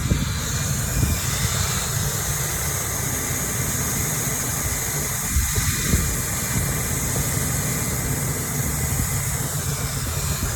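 Handheld hot-air welder's blower running steadily with a hiss as a TPO roofing patch is heat-welded around its edge, over a low rumble.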